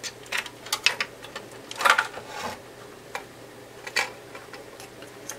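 Scattered clicks and light knocks as a printed circuit board and its ribbon-cable connectors are handled and the board is lifted out of its metal instrument chassis, with a louder cluster about two seconds in.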